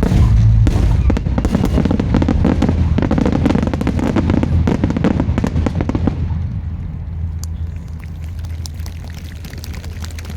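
Finale barrage of fireworks: a dense stream of bursts and crackling over a deep rumble. About six seconds in it thins out to scattered crackles as the rumble fades.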